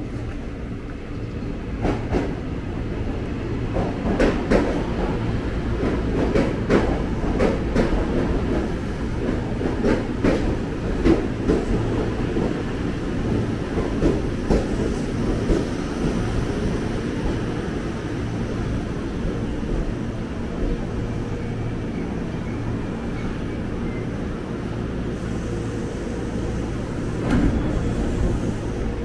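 KRL Commuter Line electric train running on the rails: a steady low rumble, with a run of irregular wheel clacks over rail joints through the first half, then a smoother run with one more clack near the end.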